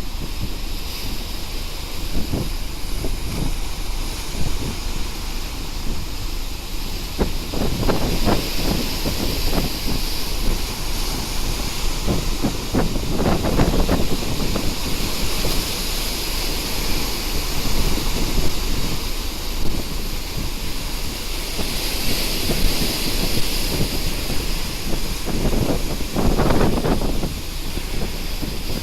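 Wind buffeting the microphone on a ship at sea, over a steady rush of wind and sea, with several louder gusts.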